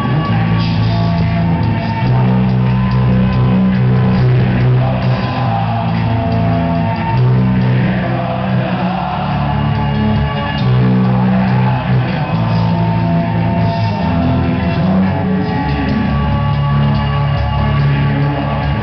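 Loud recorded music played over a sonidero's large sound system, with a strong bass line.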